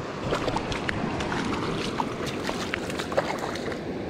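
A hooked coho salmon splashing in shallow water as it is drawn onto the bank: irregular small splashes and crackles over a steady rush of river water.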